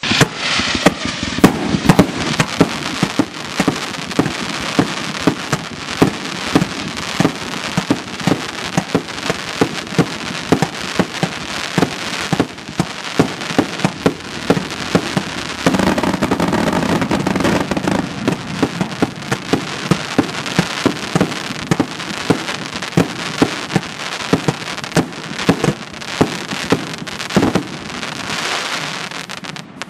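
A 50-shot, 2-inch fireworks display cake firing a rapid run of shots, each shell going up on a tail and bursting, with the silver crackle stars crackling between the bangs. It dies away near the end.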